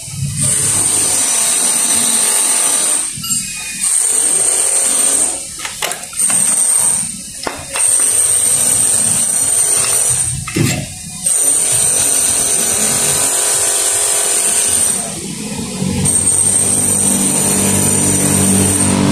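A small electric power tool whining in repeated runs of one to four seconds, stopping briefly between runs. A low hum joins in near the end.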